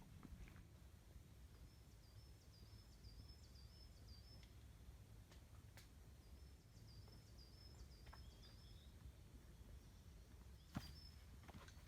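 Faint bird song: runs of short, high, quickly repeated chirping notes, one run a couple of seconds in and another about halfway, over a low rumble, with a few light clicks and one sharper click near the end.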